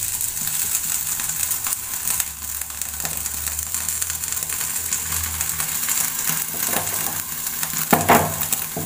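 Indian mackerel fillets in chilli masala frying in oil in a covered nonstick pan on a low flame, a steady sizzle with fine crackling. A couple of brief clicks come near the end.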